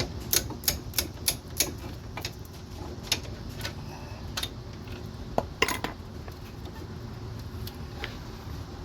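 Ratchet with a 17 mm socket on a long extension working the hub assembly's bolts: a quick run of metallic clicks, about three a second, for the first two seconds. After that come scattered single clinks of metal on metal.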